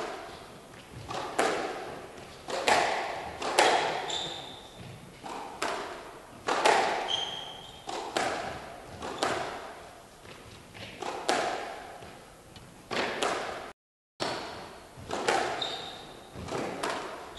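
A squash ball being struck by racquets and hitting the court walls roughly once a second, each impact echoing in the hall, with short squeaks of shoes on the wooden floor. The sound cuts out for a moment about fourteen seconds in.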